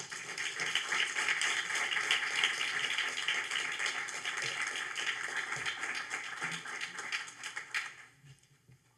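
Audience applauding: many hands clapping at once, swelling at the start and dying away about eight seconds in.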